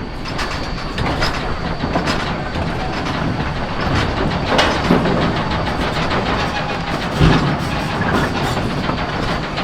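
Narrow-gauge train cars rolling along the track, the wheels clicking steadily over the rails, with a sharper knock about halfway through and a low thump a little later.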